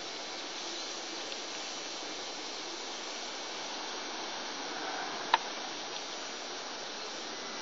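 Steady background hiss with no clear birdsong, broken by a single sharp click about five seconds in.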